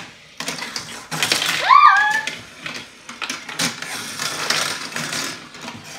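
Toy cars clicking and clattering as they are picked up, set down and pushed across a plastic derby-arena playset. A child's short voice rises and then holds about two seconds in.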